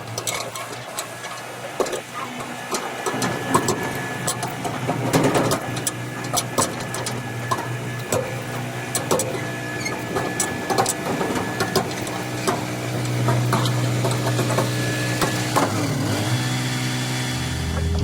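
Excavator engine running steadily with many scattered sharp clanks and knocks of metal. The engine note grows louder about 13 seconds in.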